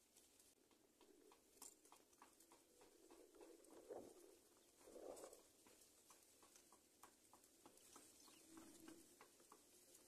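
Faint rustling and a run of soft, quick ticks from birds stirring in a woven grass nest, with a couple of brief soft swells midway.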